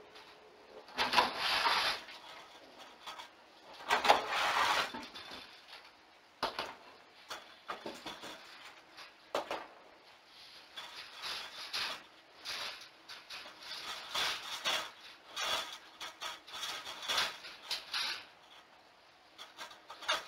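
Repeated bursts of scratching and rubbing, with two longer, louder spells about a second in and around four seconds, then many short scrapes.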